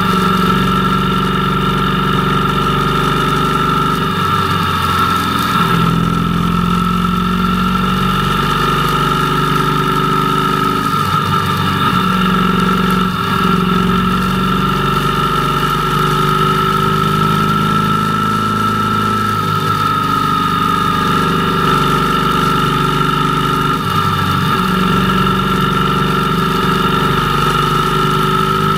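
Motorcycle engine running under way, its note rising and falling several times, over a steady high whine.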